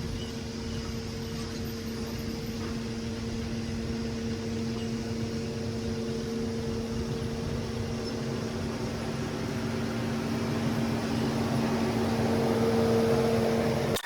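A steady mechanical hum of a motor or engine running, with a constant low tone, growing louder near the end and cutting off suddenly.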